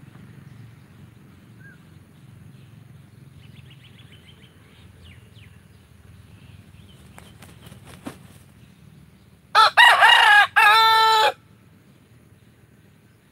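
A rooster crows once, loudly, a little under ten seconds in: a cock-a-doodle-doo of short rising notes ending on a longer held note. Before it, faint bird chirps over a low rumble.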